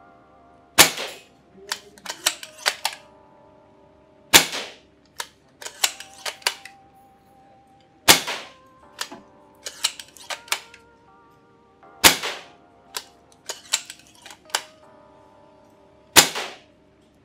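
Silverback TAC 41P spring-powered bolt-action airsoft sniper rifle fired five times, about every four seconds, through a chronograph at about 410 fps with 0.2 g BBs. Each shot is a sharp crack with a short ring. Between shots the bolt is cycled in a run of quick clicks.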